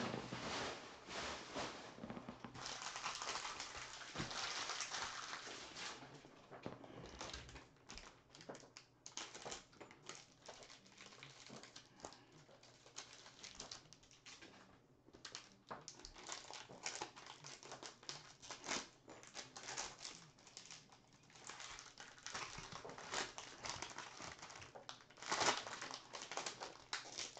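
Plastic cello-pack wrappers crinkling and rustling as the packs of baseball cards are handled and worked open, with scattered crackles and clicks. The packs are stubborn to open.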